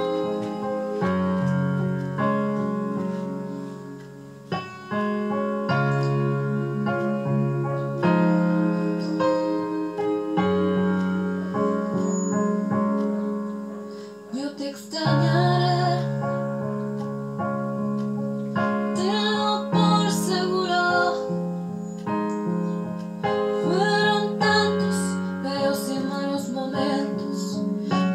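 A song with sustained keyboard chords; a female voice comes in singing about halfway through.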